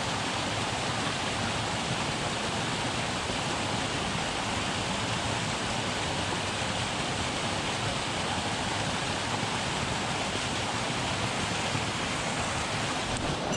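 Mountain stream water rushing steadily over rocks: an even, unbroken hiss.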